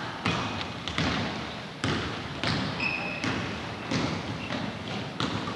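Basketball bouncing on a gym floor as it is dribbled up the court, irregular echoing thumps about once or twice a second. A short high squeak sounds about three seconds in.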